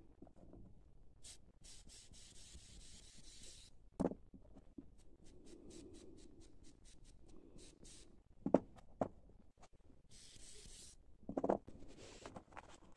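Handling sounds: tissue paper rustling in several short bouts while small ceramic bearings are picked up and set down on cardboard with a few sharp knocks, the loudest a little past the middle.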